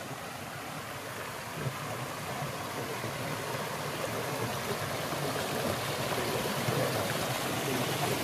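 Shallow rocky stream rushing and splashing over a small rock ledge in a steady hiss of water, growing gradually louder.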